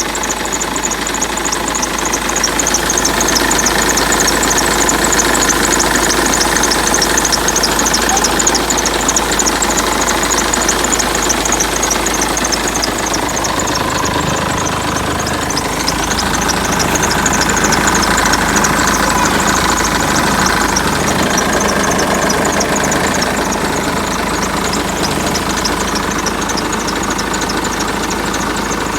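BMW 320d E46's four-cylinder diesel engine running, with a steady whistle over the engine noise and a fast ticking. The owner cannot place the cause of the whistle.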